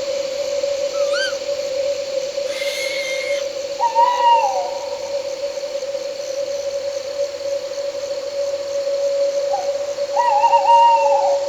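An owl hooting twice, each call a short held note that drops away at the end, about four seconds in and again near the end. Under it runs a steady one-note drone of night insects, and a brief hissing whistle sounds about three seconds in.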